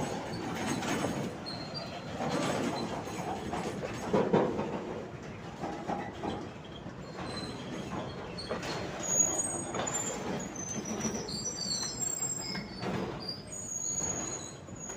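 Enclosed car-carrier freight wagons rolling past close by, their wheels rumbling and clattering over the rail in repeated surges. Thin high-pitched wheel squeals come and go in the second half.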